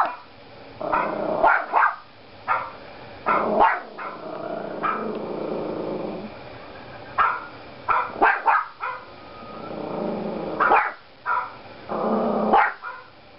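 Yorkshire terrier puppy barking at a dog on a laptop screen: about ten short, sharp barks in irregular bursts, with low growling in the longer stretches between them.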